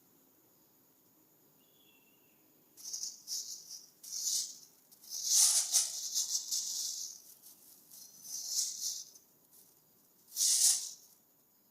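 Plastic crinkling and rustling in short bursts as a kitten plays with it. The bursts start a few seconds in, with the longest and loudest near the middle and a short sharp one near the end.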